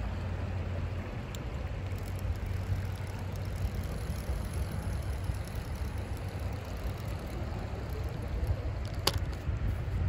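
Steady low rumble of road traffic, with one sharp click about nine seconds in.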